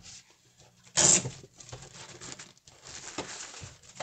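A short, loud rip about a second in as a strap holding the packed tablet is pulled free, then irregular crinkling and rustling of the thin plastic bag as the tablet is lifted out of it.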